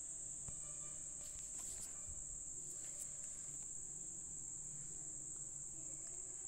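Faint, steady high-pitched whine with a low hum beneath it and a few light ticks.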